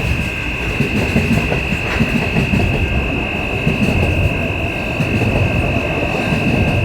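Train running with a steady low rumble and a constant high-pitched whine over it.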